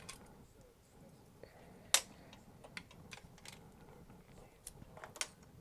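Scattered small clicks and taps of hand tools being handled on an electronics workbench during desoldering, the sharpest about two seconds in and another near the end.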